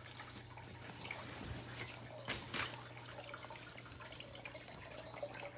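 Aquarium filter water trickling and bubbling, with small drips now and then over a steady low hum.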